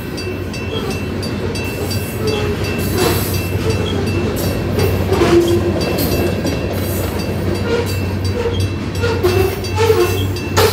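Loaded covered hopper cars of a freight train rolling steadily past at a grade crossing, wheels clacking and knocking over the rail joints and crossing. The crossing's electronic bell, a WCH soundcard fitted in an old GS bell housing, rings on throughout.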